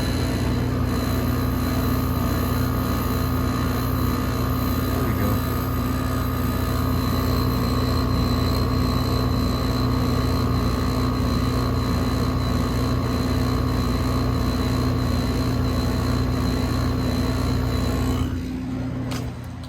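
LG 8,000 BTU window air conditioner running on cool, its compressor and fan going: a steady hum with a low even tone and a faint high whine over a rush of air. It drops in level near the end.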